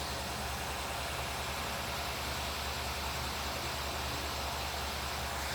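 Ford Ka 1.0 three-cylinder engine running steadily at idle with the clutch pedal pressed. The running noise is one the mechanic puts down to a worn original clutch kit.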